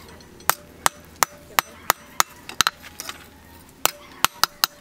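Hand hammer forging a red-hot steel knife blank on a steel post anvil: about seven evenly spaced blows, roughly three a second, a pause of about a second, then a quicker run of blows near the end.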